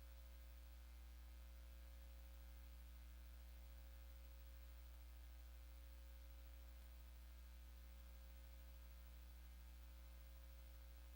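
Near silence apart from a steady low electrical hum.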